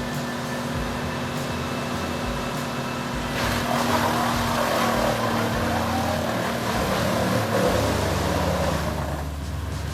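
Morbark wood chipper's engine running steadily. From about three and a half seconds in, a louder rushing, grinding noise joins it as wood is fed through, and this eases off near the end.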